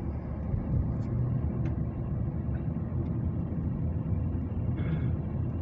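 A moving car's engine and tyre noise, heard from inside the cabin as a steady low rumble.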